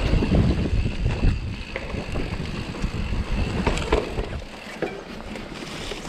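Mountain bike ridden fast over dirt singletrack, with wind buffeting the microphone and the tyres and frame rumbling and rattling over the rough ground. A few sharp knocks come from bumps around the four-second mark, and the rush eases off soon after as the bike slows.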